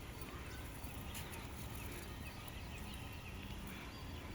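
Quiet outdoor background noise, a steady low rumble, with faint short bird chirps scattered throughout.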